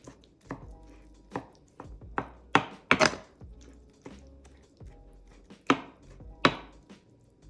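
Knife chopping on a cutting board in a handful of irregular strokes, the loudest in a quick cluster about two and a half to three seconds in and two more near the end, over soft background music.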